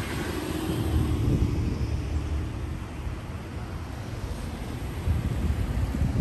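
Cars driving through a street intersection: a low rumble of engines and tyres that swells about a second in and again near the end.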